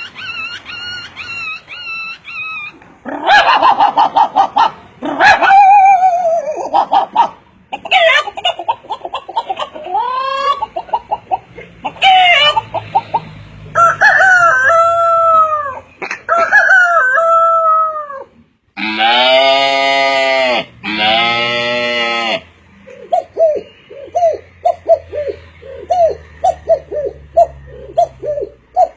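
Farmyard chickens: roosters crowing in falling arched calls and hens clucking in rapid short notes near the end, with two long, lower animal calls a little past the middle.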